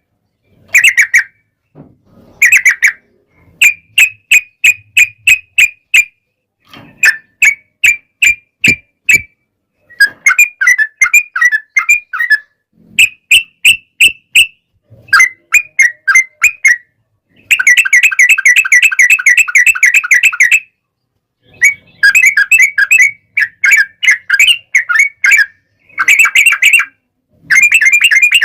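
Yellow-vented bulbul song: loud bursts of rapid chattering notes in phrases of one to three seconds with short gaps, and the longest unbroken run a little past the middle.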